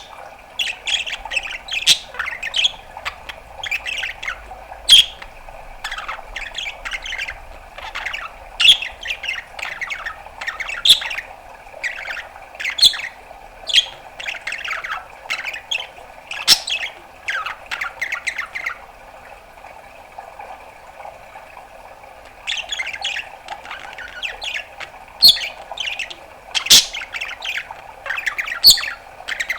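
Budgerigar chattering: a rapid string of short chirps, squawks and clicks with a few sharp, louder pops. It stops for a few seconds a little past the middle, then starts again.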